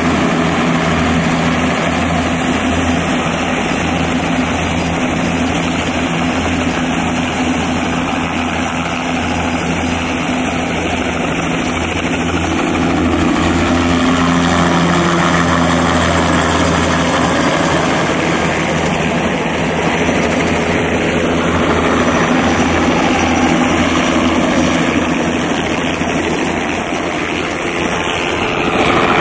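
Bell 206B-3 JetRanger III crop-spraying helicopter in low flight, its turboshaft engine and rotors running at a steady, loud drone that rises slightly about halfway through.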